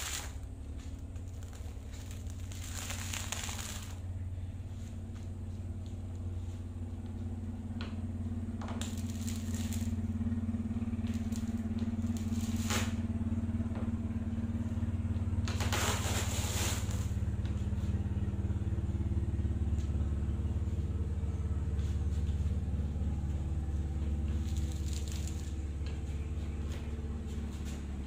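Black adhesive tape being peeled off the edge of a laminated fiberglass panel: five or six short crackling rips, the strongest about two-thirds of the way through. A steady low mechanical hum, like a motor running, sits underneath throughout.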